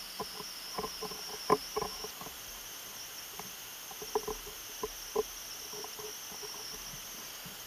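Faint, irregular small metallic clicks from an Omega cal. 344 bumper automatic watch movement as its mainspring is let down, with the click held out of the way and the crown held to slow the release.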